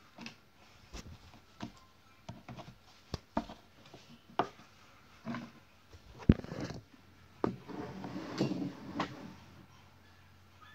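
Handling noises close to the microphone: a run of irregular light knocks and taps, a sharp knock about six seconds in, then a few seconds of rustling and shuffling.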